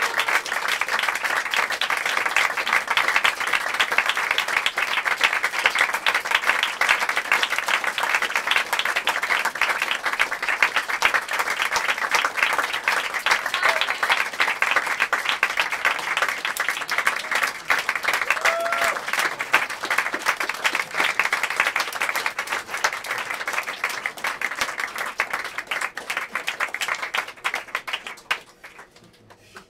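Audience applauding: dense, steady clapping that thins out over the last few seconds and stops just before the end, with a brief cry from the crowd twice along the way.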